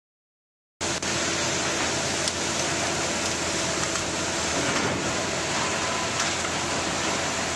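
Steady rushing noise of demolition work with hydraulic excavators running, cutting in abruptly just under a second in, with a few faint knocks.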